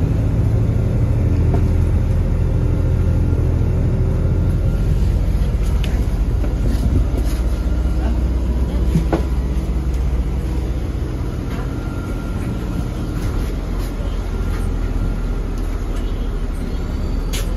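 Inside a MAZ-203 city bus under way: a steady low engine drone with road noise and a few sharp knocks and rattles from the cabin.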